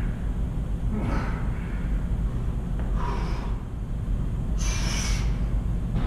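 A man's forceful breaths while straining through pull-ups: three hard exhales, about a second in, about three seconds in and near five seconds, the last one the longest and hissiest. A steady low rumble runs underneath.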